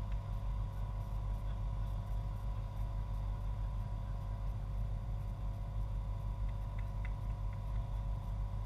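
Steady low rumble of outdoor background noise with a faint steady hum, and a few faint short sounds from the far end of the pitch.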